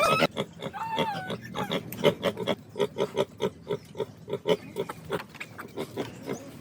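Pigs grunting in short, quick pulses, several a second, with a brief pitched squeal about a second in.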